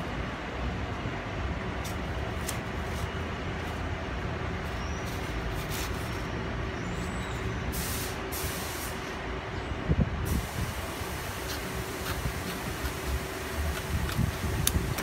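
A steady low mechanical hum with a constant tone running through it, broken by a few light clicks and a brief hiss about eight seconds in.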